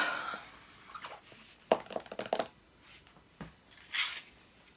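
Handling noise of a paperback activity book being lowered and set down: a short paper rustle at the start, then a handful of light knocks and taps in the middle, with a soft hiss near the end.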